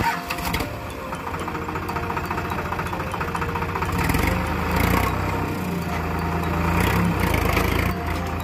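Sonalika tractor's diesel engine running under load as it pulls a tined cultivator through ploughed soil, growing louder about halfway through.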